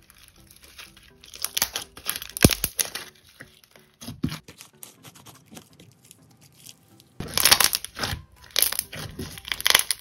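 Glossy slime mixed with foam beads being squeezed and kneaded by hand, giving crunchy crackling and clicky popping from the beads and trapped air bubbles. There are louder flurries about two seconds in and again from about seven seconds on.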